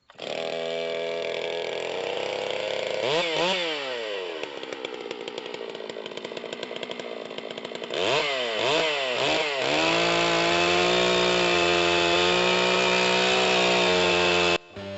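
Stihl MS 250 two-stroke chainsaw running, its pitch swooping up and down with throttle blips once early and several times about eight seconds in. It is then held wide open at a steady high pitch, the loudest part, until it cuts off abruptly shortly before the end.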